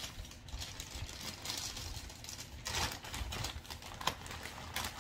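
Packaging handled and opened by hand: scattered small clicks, taps and rustles, with a louder crinkle about three seconds in and another near the end.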